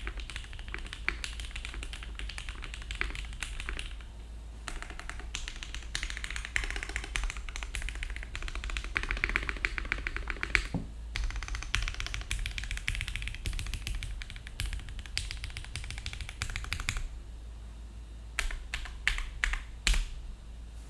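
Fast typing on a Rama Zenith mechanical keyboard with Cherry-topped Gateron Box Ink Black V2 linear switches lubed with Krytox 205g0, in a carbon fibre plate with GMK keycaps: a dense, quick run of keystroke clicks with short breaks, then a few louder separate key presses near the end.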